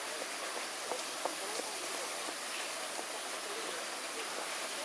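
Steady rush of running water, with a few faint short clicks about a second in.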